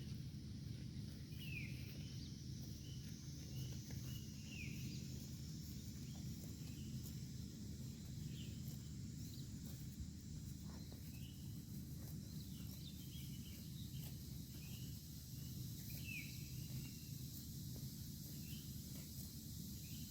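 Cow grazing, tearing and chewing grass in scattered crunches over a steady low rumble, with small birds chirping short falling notes every second or two.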